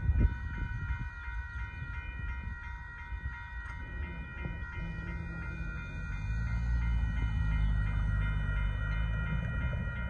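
Railroad crossing signal bell ringing steadily while the crossing gates lift after the train has cleared. Under it is a low rumble that grows louder in the second half.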